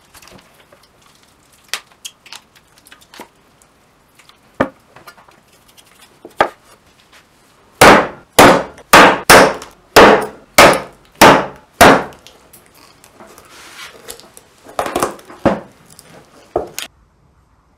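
Meat cleaver chopping through sheep heads on a wooden cutting board. Scattered light knocks and taps lead into a run of about nine heavy chops, roughly two a second, with a few more chops near the end.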